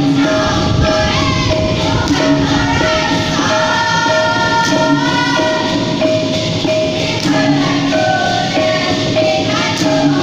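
Dikir barat song: a lead singer and the seated chorus singing together over the ensemble's accompaniment, with a steady pitched note repeating a little under twice a second.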